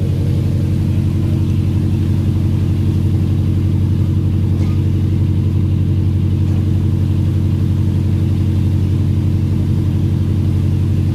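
A fishing vessel's diesel engine running steadily under way, a constant low drone that does not change.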